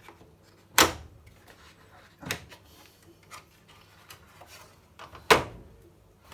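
Plastic condenser box of a tumble dryer being pushed back into its housing and clipped shut: two loud sharp clicks, about a second in and near the end, with a lighter knock between, the sign of it seating home.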